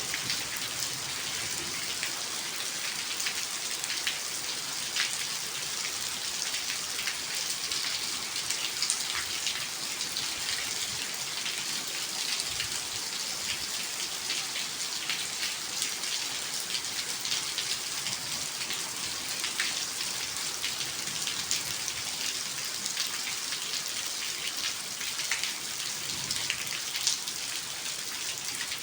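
Steady rain falling, with many separate drops ticking on a hard surface over the hiss.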